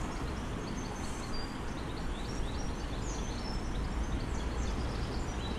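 Steady low outdoor rumble, with small birds chirping in many short, quick notes throughout.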